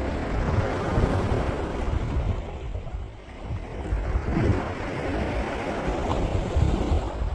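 Sea waves washing onto the beach in a steady noisy hiss, with gusts of wind buffeting the microphone in a low rumble.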